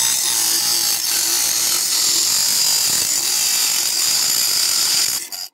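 Small homemade table saw, its blade driven by a 775 DC motor, cutting into a metal aerosol can as the can is turned against the blade: a steady, high-pitched grinding hiss that cuts off suddenly near the end.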